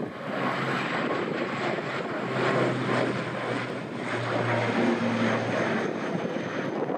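ATR 72-600 turboprop airliner at takeoff power as it climbs out just after liftoff. Its two propeller engines give a steady drone with a low propeller hum that wavers slightly in pitch.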